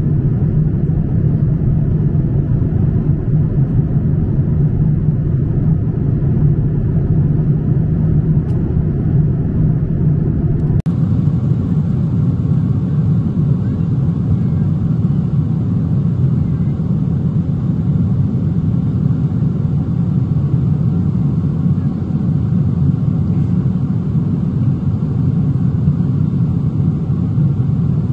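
Steady jet airliner cabin drone in flight: engine and airflow noise heard from inside the cabin, a deep even rumble. About eleven seconds in, the hiss turns slightly brighter.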